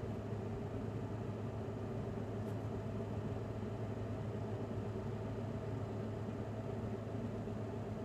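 Homebase 10-litre dehumidifier running in strong mode: a steady low hum under an even rush of fan air.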